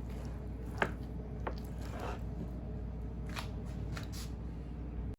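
About six light clicks and rustles scattered over a steady low hum, the sharpest just under a second in.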